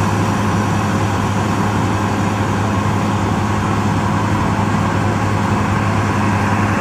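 Tracked rice combine harvester running steadily and loud, engine and machinery at a constant speed while it unloads grain through its auger into a truck.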